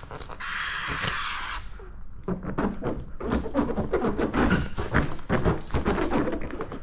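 Steady hiss of slip solution being sprayed under paint protection film for about the first second and a half, then a quick run of squeaks and soft thuds as wet hands rub and press the soapy film down onto the hood.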